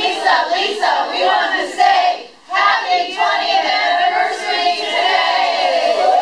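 A group of women singing together: short choppy phrases, a brief break about two and a half seconds in, then longer held notes.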